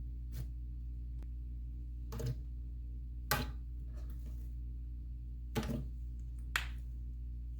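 Thick slime being squished and pressed by hand, giving about five short, sharp bubble pops, over a steady low hum.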